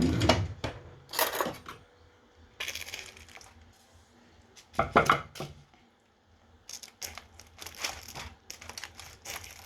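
Grilled chicken being pulled apart by hand, with a run of short tearing and crackling noises and light clinks. The bursts come about a second in, around three seconds, around five seconds, and as a denser cluster in the last three seconds.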